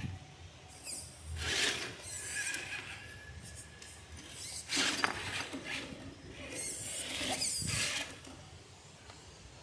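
Traxxas TRX-4 RC crawler's electric motor and geared drivetrain whining in several short bursts of throttle while the truck claws its way over rocks.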